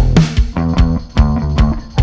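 Music track with guitar and bass over a steady beat.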